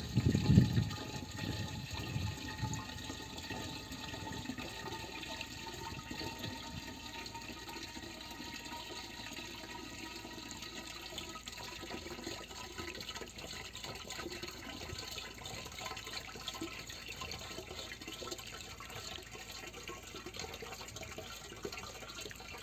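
Water from a small 24 V DC pump's hose pouring steadily into a plastic jerry can, a continuous splashing fill. It is louder and lower for the first second or so, then settles.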